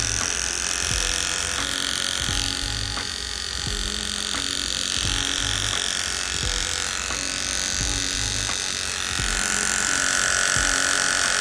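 Cordless Wahl hair clipper motor running, its whine wavering and shifting in pitch because the worn switch is not making a good connection.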